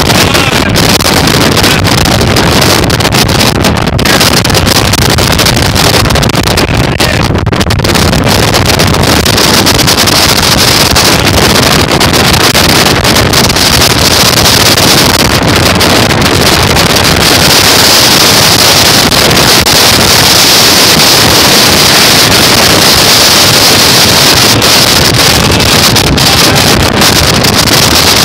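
Strong wind buffeting the phone's microphone: a loud, steady rush of noise with no pauses, its hiss growing stronger from about nine seconds in.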